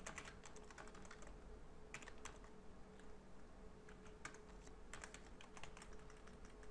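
Faint typing on a computer keyboard: irregular runs of keystroke clicks with short pauses between them.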